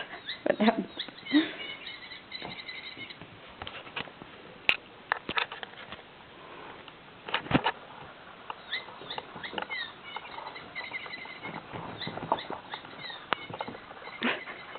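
Squeaking toy mouse giving runs of quick, high chirping squeaks as a cat plays with it, near the start and again about two-thirds of the way through, with sharp knocks and clicks of the toy and paws on the floor in between.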